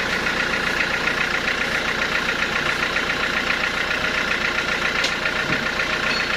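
Sawmill machinery running steadily, with a fast, even mechanical pulsing.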